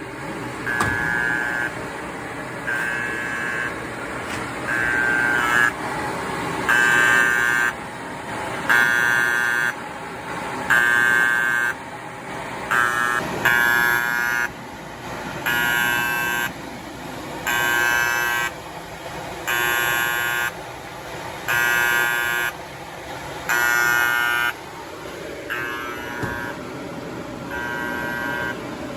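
Warning buzzer of a Kyungdong Navien produce dryer beeping repeatedly, about one beep every two seconds: the overheat alarm, sounding because the bimetal temperature safety switch has tripped and cut the power (error E-1).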